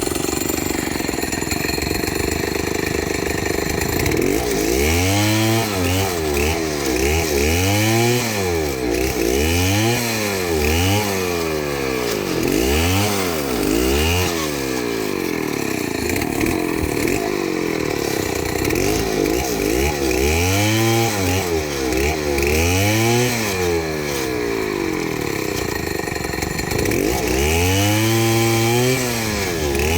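Two-stroke chainsaw running: a steady note at first, then the engine revving up and down again and again, about once a second, with steadier stretches between.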